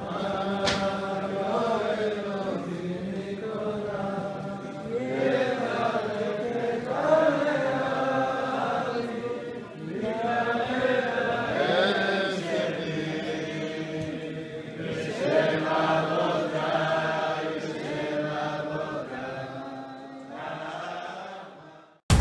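A group of men singing a chant together, the melody rising and falling, then dying away near the end.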